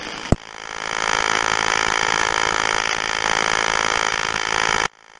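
Steady buzzing hum on a telephone line, starting just after a click and cutting off abruptly near the end, at a dropped or disconnecting 911 call.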